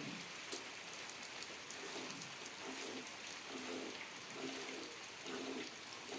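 Hand milking, with milk streams spattering and hissing into a pail, over a low pitched sound that pulses roughly once a second.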